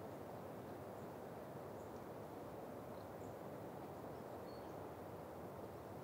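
Steady wind through a pine forest, an even rush with no distinct gusts. A few faint high chirps sound briefly now and then.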